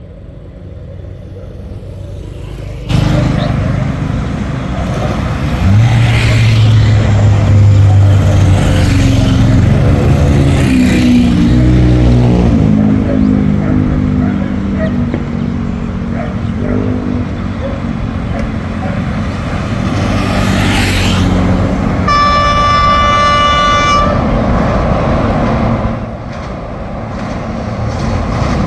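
Motorcycles and scooters riding past one after another, their small engines rising and fading as each goes by. About 22 seconds in, a horn sounds for about two seconds.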